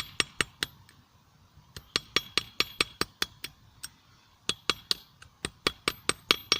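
Hammer blows on a 25 lb steel anvil, forging a hot screw blade: quick runs of ringing strikes about five a second, broken twice by short pauses.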